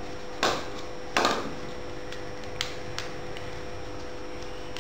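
Hands handling a small cylindrical tube: two brief scraping knocks about half a second and a second in, then a couple of faint clicks, over a steady low hum.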